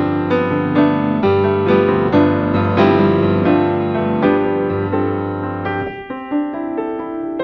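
Background piano music: a slow run of sustained notes over a held bass line that drops out about six seconds in, leaving only the higher notes.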